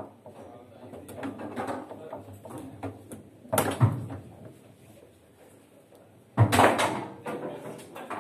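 Foosball play: the hard ball clacking off the table's figures and walls and the rods knocking, scattered light clicks with two loud sharp bangs, about three and a half and six and a half seconds in.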